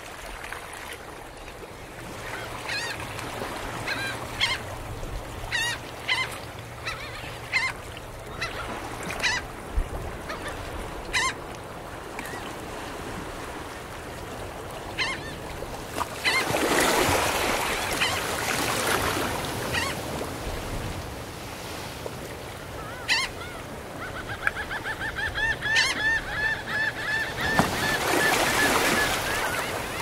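Gulls calling in short separate cries for the first third, over gentle ocean waves washing onto a sandy shore. A wave surges up the beach about halfway through and again near the end, and from about two-thirds in a gull gives a long, fast run of calls.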